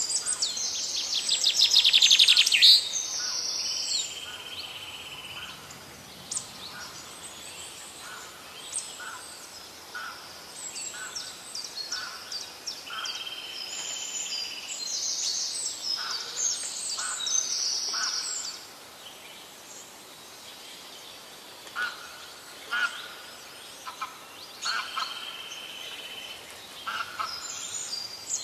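Birds calling and chirping, with a dense burst of calls about two seconds in and many short high chirps after it. A held high note recurs three times.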